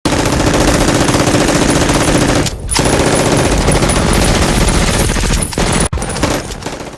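Rapid automatic gunfire sound effects, in long bursts broken briefly about two and a half seconds in and again near six seconds.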